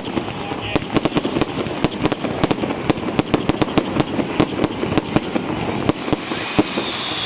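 Fireworks display: aerial shells bursting into white crackling stars, a dense, rapid crackle of many sharp pops that thins out about a second before the end.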